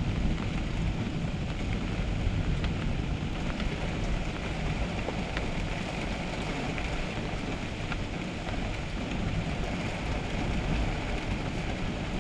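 Storm rain and strong wind blowing off the lake: a steady hiss with a heavy low rumble underneath, and scattered sharp taps of raindrops.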